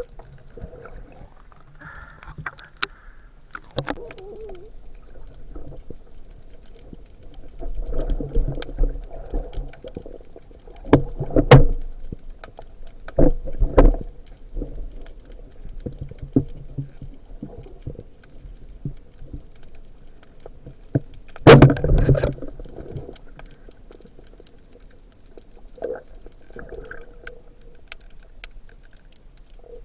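Irregular knocks and thumps on a small fishing boat, with faint water sounds between them. The loudest thumps come about 11, 13 and 22 seconds in.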